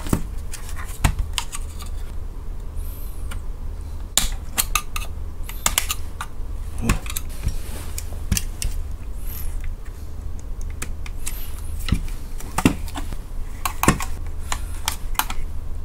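Thin sheet-metal case of a car radio being handled and pried apart by hand: scattered sharp clicks and metallic taps as the cover's tabs are worked loose, over a steady low rumble.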